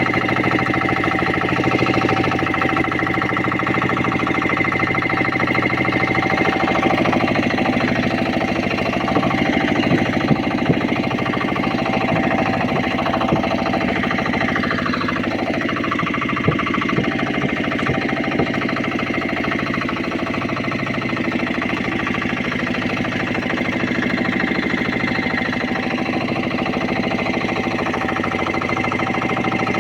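Small fishing boat's engine running steadily with a fast, even chugging, with a few sharp knocks near the middle.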